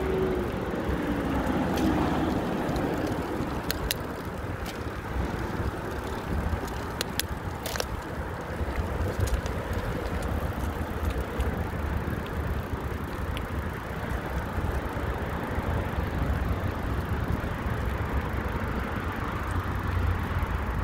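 Riding a bicycle: wind buffeting the microphone and tyres rolling over rough, cracked asphalt, with a few sharp clicks and rattles about four and eight seconds in. A low tone falls in pitch in the first two seconds.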